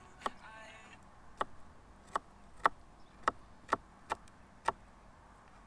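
Kitchen knife chopping on a plastic cutting board: eight sharp knocks at an uneven pace of about two a second, stopping near the end.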